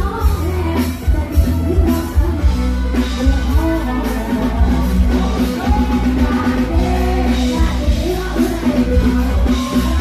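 A woman singing a Thai luk thung song live into a microphone over a full band, through the stage PA, with heavy bass and a steady drum beat.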